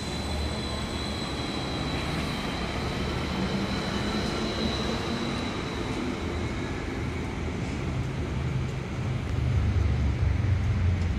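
New Taipei light rail tram pulling away from the station, its running gear and motors rumbling with a high whine that holds, then sinks slightly and fades as it draws away. A low rumble grows louder near the end.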